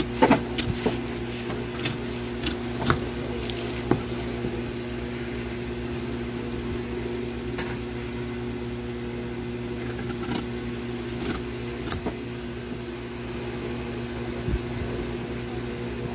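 Scissors cutting through paper, with scattered snips and clicks, over a steady background hum.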